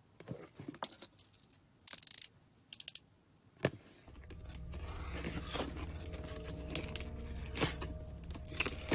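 Quick clicks of a utility knife's blade being pushed out, then the knife slicing and scraping through packing tape on a cardboard box, with taps and knocks on the box. A low steady drone comes in about four seconds in and runs under the cutting.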